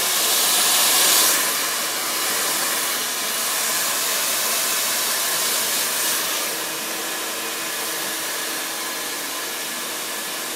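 Pet grooming dryer blowing a steady stream of air through its hose, a little louder in the first second and easing slightly about six seconds in.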